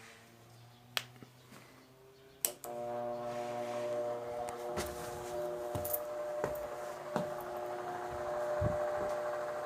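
Arge Twister 50 cm wall fan switched on: a click, then a louder click as its motor starts, humming steadily. The sound of the blades moving air builds over the next few seconds, with a few faint ticks.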